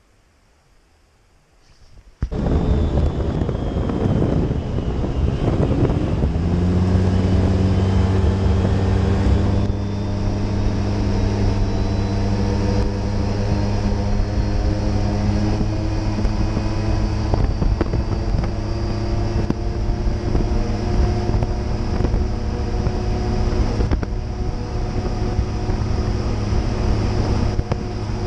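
After about two seconds of near silence, a side-by-side UTV's engine comes in suddenly, rising in pitch for a few seconds as the machine picks up speed and then running steadily as it drives along a gravel road, with wind on the microphone.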